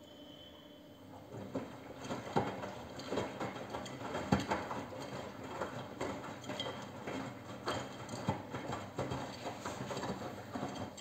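Miele W 2105 front-loading washing machine spray-filling for the rinse: water sprays into the turning drum, and wet laundry splashes and clatters irregularly inside. It starts about a second in and stops just before the end.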